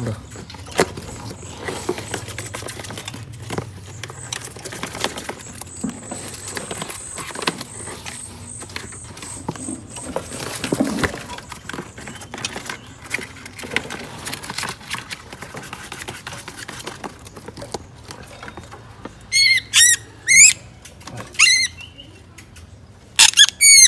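Clicks and rustling as a hand works at a small bird cage and reaches in. Near the end, a caught white-rumped shama gives loud, repeated harsh squealing distress calls.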